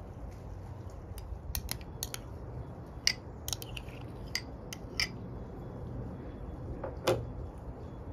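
Metal spoon clinking and scraping against glass bowls while thick tomato paste is scooped and spooned: a string of sharp light clicks, then a duller knock about seven seconds in.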